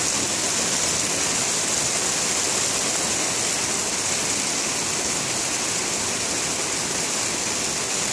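Rainwater from a gutter pouring steadily and splashing onto stones and a box turtle below, a constant rushing splash.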